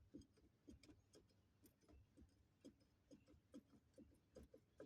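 Faint, irregular light knocks, about two or three a second, from a UAZ Patriot's front shock absorber mount being worked: the knocking of its worn, broken rubber bushings, the cause of the dull thuds on suspension articulation.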